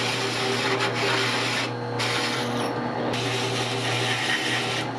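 Drill press driving a hole saw through a metal plate: a steady motor hum under a continuous grinding rasp of the saw teeth in the metal. The rasp thins out briefly twice in the middle.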